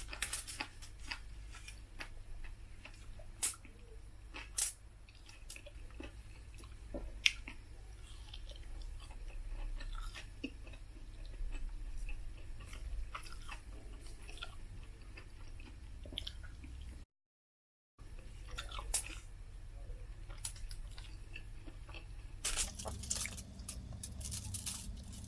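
Close-miked chewing and mouth sounds of a person eating, with scattered small clicks and crunches over a steady low hum. The sound drops out completely for about a second around two-thirds of the way through.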